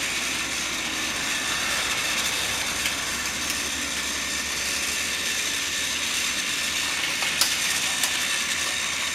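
Two battery-powered Trackmaster toy shunters running on plastic track: a steady whir from their small geared drive units. Two sharp clicks come near the end.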